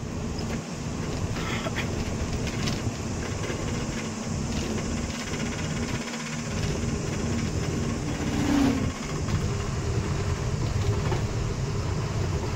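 A truck running on the road, heard from inside the cab: a steady low engine and road rumble. It has a brief louder tone about two-thirds of the way through.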